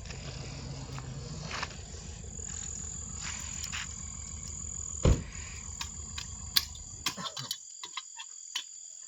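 Crickets chirping steadily at a high pitch, over a low rumble that stops about seven and a half seconds in. A loud thump about five seconds in, and scattered clicks and knocks.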